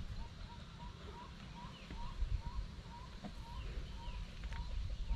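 An animal's short, slightly rising call repeating steadily, about three times a second, over a low rumble of wind and a few dull thumps of movement.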